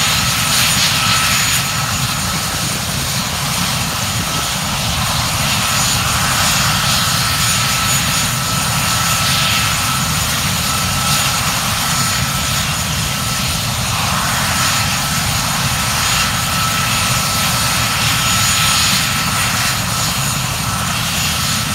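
Mil Mi-17 transport helicopter's twin turboshaft engines running with the rotors turning on the ground before lift-off. A steady, loud rush of rotor and engine noise carries a thin, high, constant turbine whine.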